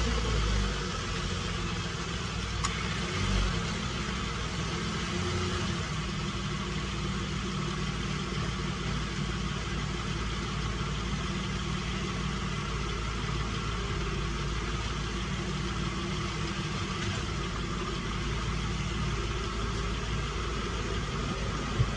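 2010 Dodge Grand Caravan's V6 engine idling steadily just after a start, turning the front drive axle with its torn CV joint boot. A single sharp click near the end.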